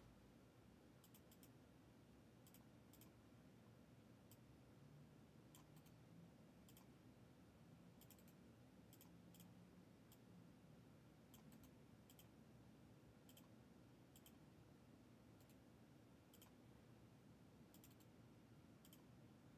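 Near silence broken by faint, sharp clicks, irregularly about once a second and often in quick pairs: a computer mouse being clicked while an online list randomizer is run.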